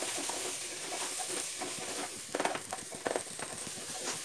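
Spatula stirring rice and vegetables in a pressure cooker pot: scattered scrapes and light knocks over a faint, steady sizzle.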